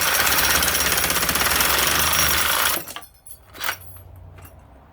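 Power saw with a fine-toothed blade cutting into a small plug-in transformer held in a vise, a loud fast-buzzing cut that stops suddenly about three seconds in. A single short knock follows near the end.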